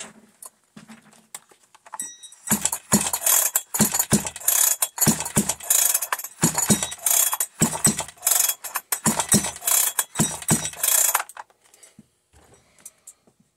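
Plastic chainsaw covers and parts being handled and fitted by hand: a run of rattling and scraping with irregular knocks, starting a couple of seconds in and stopping near the end.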